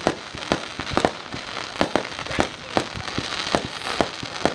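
Fireworks going off: a rapid, irregular string of sharp bangs, about two or three a second, over a steady crackling hiss.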